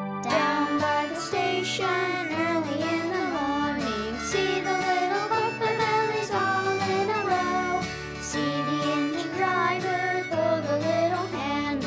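Children's music: an instrumental tune with a melody that bends in pitch over a changing bass line.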